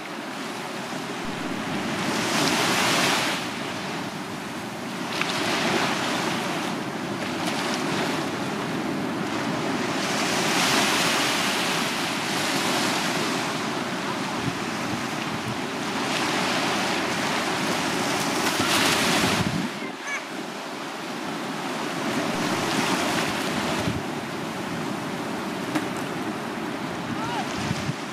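Small sea waves breaking and washing up a sandy beach, the surf swelling and fading every few seconds as each wave runs in and draws back.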